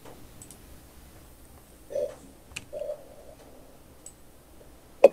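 A few computer mouse clicks over quiet room tone, with one sharp, loud click near the end and a couple of short muffled sounds midway.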